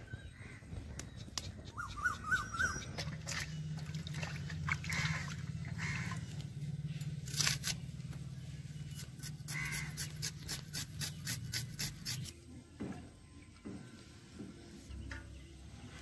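An onion is sliced against a boti blade in a rapid run of short, crisp cuts, over a low steady rumble that stops about twelve seconds in. A bird chirps briefly about two seconds in.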